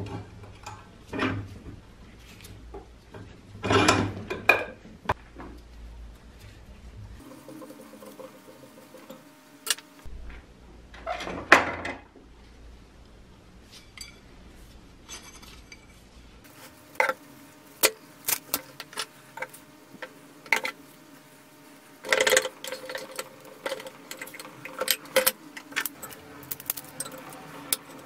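Scattered metallic clinks, knocks and clatter from a rusty metal pump rod with brass fittings being handled and worked in a steel bench vise, busiest in the last third.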